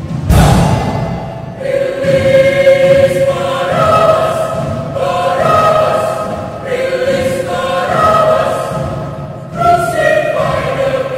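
Mixed choir of men and women singing in harmony, with held chords that shift in pitch. A sudden loud entry comes just after the start and another near the end.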